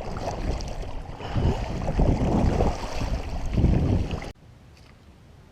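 Wind buffeting the microphone in uneven gusts, with water noise. About four seconds in it cuts off abruptly, leaving a faint hiss.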